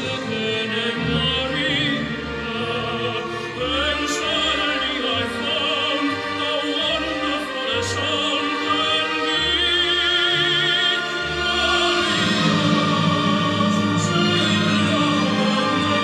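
An opera recording, a singer with wide vibrato over an orchestra, played through an EL34 push-pull valve amplifier into a pair of large vintage floor-standing loudspeakers and heard in the room.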